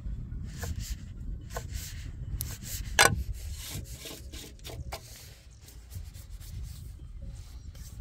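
Kitchen knife chopping red pepper on a thick wooden cutting board: a run of quick knocks and short cutting scrapes, with one loud knock about three seconds in, then only scattered knocks later on.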